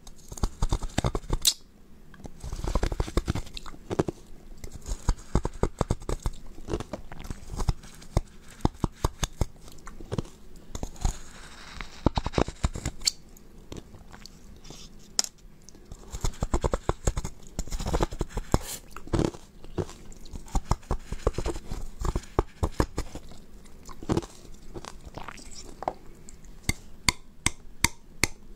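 Close-miked biting and chewing of solid ice: a dense, irregular run of sharp crunches and cracks as teeth break the ice.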